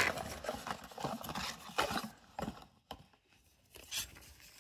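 Hands handling a paper name card and packaging: a quick run of light clicks, taps and rustles that thins out after about two seconds to a few separate clicks.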